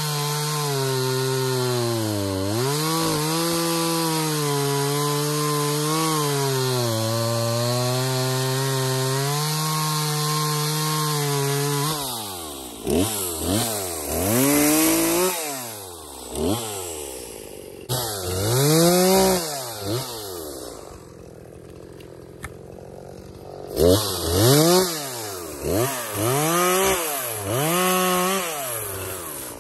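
Poulan Pro PR5020 50cc two-stroke chainsaw running at full throttle through a log, its pitch sagging briefly as it loads in the cut. About twelve seconds in it drops off and is revved up and down in repeated bursts, settles to a brief idle, then is blipped again in short revs.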